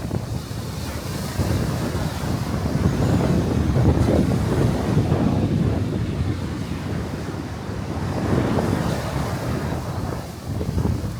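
Strong gusting wind buffeting the microphone with a low rumble, building to its strongest about four seconds in and easing briefly near the end.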